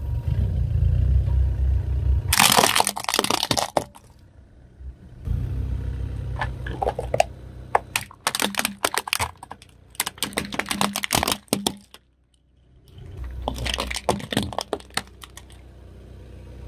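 Hard plastic toys cracking and snapping as a car tyre rolls over and crushes them, in several bursts of rapid cracks over the car's low rumble.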